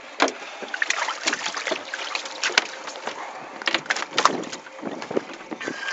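Irregular knocks and thumps on a boat deck as a freshly landed redfish is handled among the landing net.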